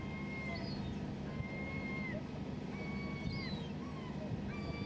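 A boat's engine running steadily with a low rumble. Over it come about four drawn-out high squeals, each dropping in pitch at its end.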